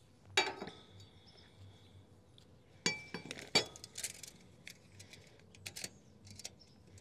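A tape measure and a metal speed square handled on a wooden trailer deck: a scattering of sharp clicks and light metallic clinks, the loudest about half a second in and around three seconds in, the first with a brief ring.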